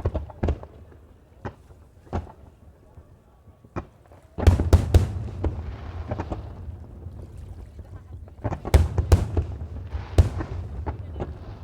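Fireworks display: a few separate bangs, then from about four seconds in a rapid barrage of heavy shell bursts with crackling, and another volley of loud bangs a few seconds later.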